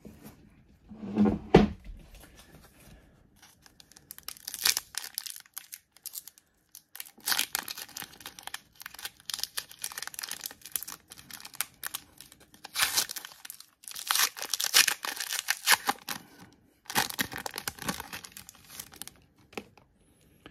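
A thump about a second and a half in, then a trading card pack's wrapper being torn open and crinkled in several long bursts.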